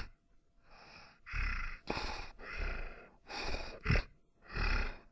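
A person voicing zombie sound effects: a run of harsh, breathy gasps and rasps, about six in a row, two of them short and sharp.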